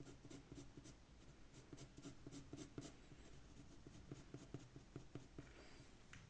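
Faint scratching of a pencil on paper in quick, short repeated strokes.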